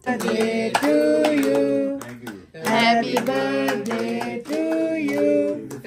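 A song with a singing voice and sharp percussive beats, starting suddenly and breaking off briefly about two seconds in.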